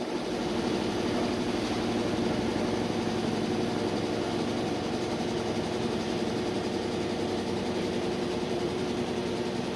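Washing machine on its spin cycle: a steady, unbroken motor-and-drum hum holding its speed, late in the cycle.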